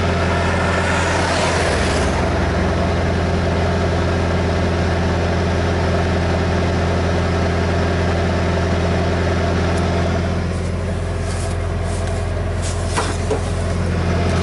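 Truck's diesel engine idling with a steady low hum, heard from inside the cab. A rush of noise swells and fades about a second in.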